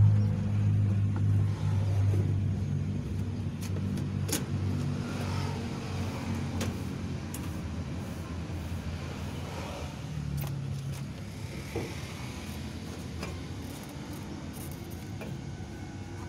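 Clothes spin dryer's motor and drum humming, then gradually fading as it slows, with a few faint clicks.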